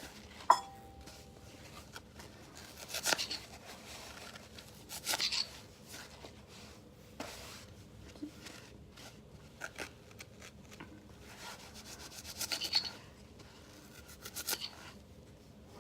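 Knife sawing through foam sponge in short bursts of quick rasping strokes with pauses between. About half a second in comes a single sharp click with a brief ringing tone.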